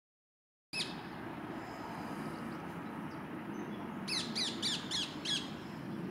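A bird calls: one sharp falling note about a second in, then a quick run of five falling notes, about three a second, near the end, over a steady low background rumble.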